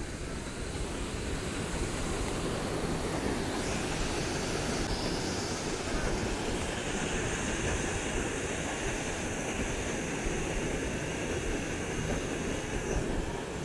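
Steady rush of churned water and wind from a moving riverboat, with its red paddlewheel turning through the water.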